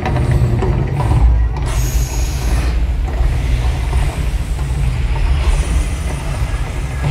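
Mirage volcano attraction erupting: a deep, steady rumble under whooshing bursts of gas flame, with a sharp hiss about two seconds in.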